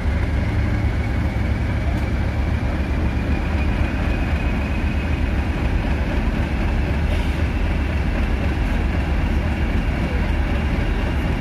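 Class 50 diesel-electric locomotive's English Electric V16 engine idling steadily, with a deep, even rumble.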